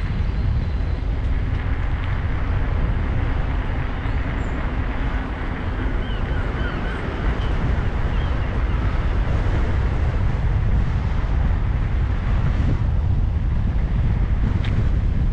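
Continuous wind noise buffeting the microphone: a steady, choppy low rumble with a hiss above it.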